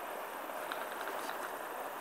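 Steady outdoor background hiss, with a few faint ticks about a second in.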